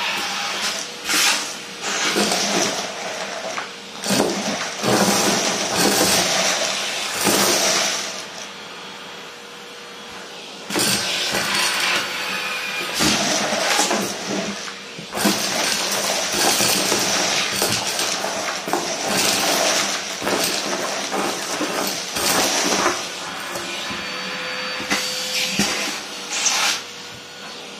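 Vacuum cleaner sucking up paper confetti and small bits through a bare metal wand: a rush of air full of crunchy crackling and rattling as the pieces hit the tube. About eight seconds in it eases to a quieter rush for a couple of seconds, then the crackling picks up again.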